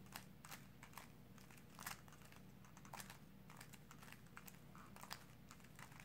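Faint run of light plastic clicks from a GAN 3x3 speedcube's layers being turned by hand in quick succession, the moves of a corner-swap algorithm, over a low steady hum.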